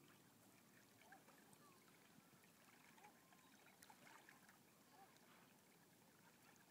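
Near silence: faint ambience beside calm water, with faint short chirps now and then.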